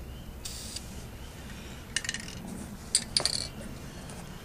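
Krylon aerosol spray paint can: a short hiss of spray about half a second in, then a few sharp metallic clinks from the can near the end.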